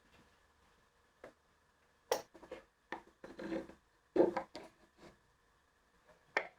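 Wooden parts being handled, knocking and rubbing against each other in a string of short knocks and scrapes.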